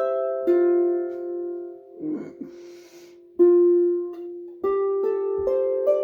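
Harp played slowly, single plucked notes ringing on. About two seconds in the notes die away, and there is a short noisy break without notes. Playing picks up again with a rising run of notes near the end.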